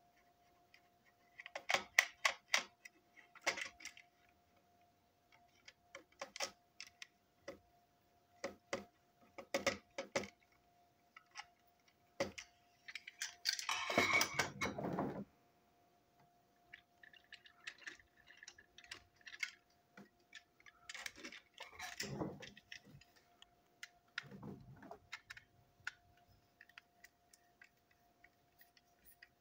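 Small clicks and rattles of plastic toy train parts being handled, taken apart and fitted back together by hand, with a longer scraping rub about halfway through. A faint steady high hum runs underneath.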